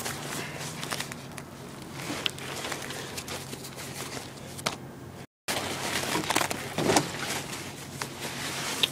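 Fabric backpack being handled and turned over close to the microphone: irregular rustling and scraping of the pack's fabric and straps with a few light clicks, cut by a brief dropout about five seconds in.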